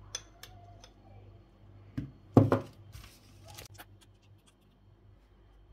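A metal spoon clinking against a bowl and scraping chutney across a flatbread, a few light clicks, with one louder dull knock about two and a half seconds in.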